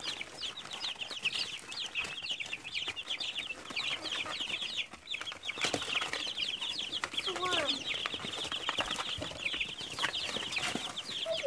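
A brood of baby chicks peeping constantly while they feed on worms: many short, high, falling peeps overlapping without a break.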